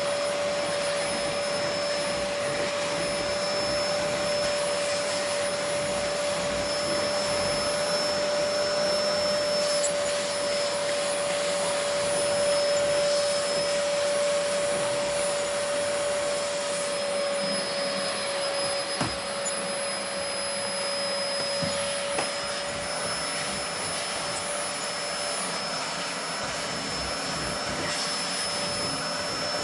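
Vacuum cleaner running steadily while vacuuming stairs: a constant rushing hiss with a steady motor whine. Two light knocks come a little past halfway.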